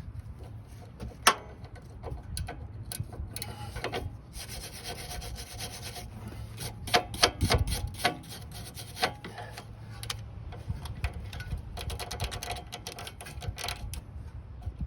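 A metal tool scraping, rubbing and clicking in short irregular strokes against the rusted end of a sway bar link stud, cleaning rust out of the stud so a tool can grip it.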